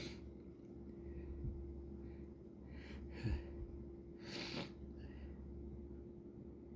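A person sniffling and taking sharp, breathy inhales, once about three seconds in and again about four and a half seconds in: the catching breaths of a sneeze fit building toward the next sneeze.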